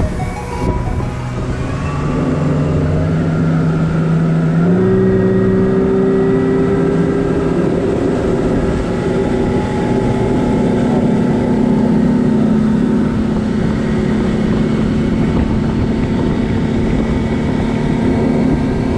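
A 300 hp outboard motor on a centre-console boat accelerating, its pitch climbing over the first few seconds and stepping up about five seconds in, then running steadily at speed as the boat planes.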